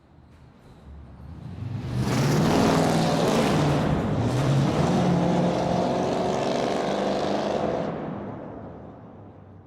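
Muscle car engine swelling up out of silence, running loud for about six seconds, then fading away, like a car driving past.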